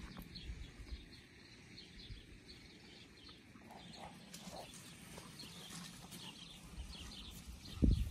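Quiet yard ambience with scattered faint high chirps and a low rumble, then a sudden loud rustle near the end as leaves brush against the microphone.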